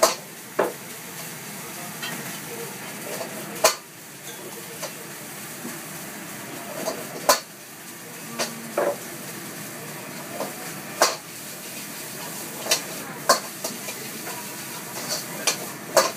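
Stir-frying in a Chinese wok: food sizzling with a steady hiss, broken by sharp metallic clangs of the ladle striking the wok, about ten of them at uneven intervals.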